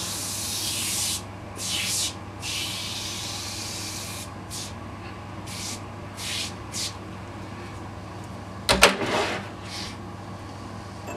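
Aerosol can of Tough Stuff foam cleaner spraying onto vinyl tolex in hissing bursts: a few long sprays, then several short ones. A sharp knock a little before the end.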